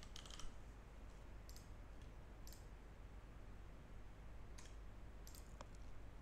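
Faint clicks of a computer mouse and keyboard, several single clicks spaced irregularly about a second apart.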